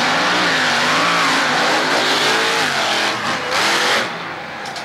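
Monster truck engines revving hard, their pitch rising and falling as the trucks race over crushed cars. About four seconds in the sound drops suddenly to a quieter engine rumble.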